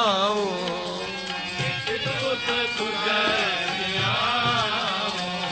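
Sikh kirtan: a male voice draws out the sung word 'dhiaao' in a wavering, ornamented line over sustained harmonium-like tones and tabla.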